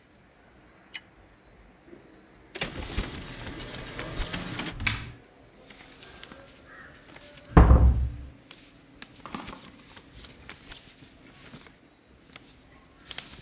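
Household handling noises: a couple of seconds of rustling, a single heavy thump about halfway through, then a run of light clicks and knocks.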